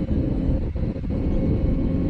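Airbus A320neo passenger cabin noise in cruise: a steady low drone of engines and airflow, with a faint steady hum on top.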